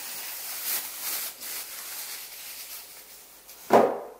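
Thin clear plastic bag rustling and crinkling as it is handled, with a short thump about three and a half seconds in.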